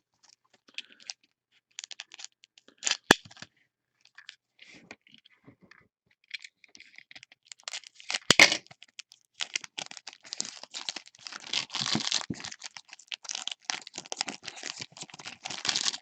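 Trading card pack being handled and opened by hand: a few scattered clicks and rustles, a sharp crackle about eight seconds in, then steady crinkling and tearing of the pack's foil wrapper.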